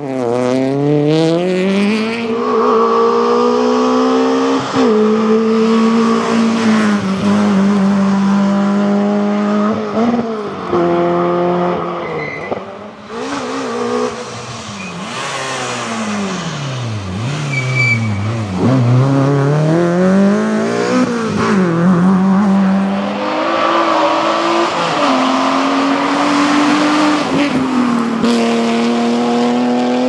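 Rally car engines at full throttle, several cars in turn: the revs climb and drop back sharply at each gearshift. About two-thirds through, the revs fall low and climb back again.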